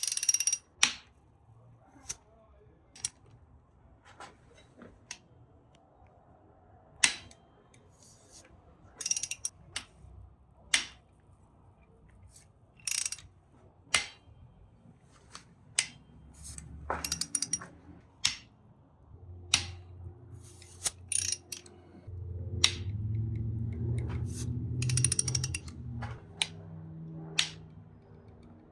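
Engine cam cap bolts being cracked loose with a hand ratchet: sharp cracks as bolts break free, with short bursts of ratchet clicking between them. A low drone joins in for a few seconds about two-thirds of the way through.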